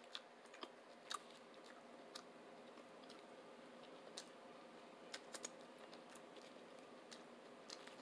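Faint close-up chewing of a sub sandwich: scattered sharp wet mouth clicks and smacks at irregular intervals, a few louder ones about a second in and around the middle, over a steady low hum.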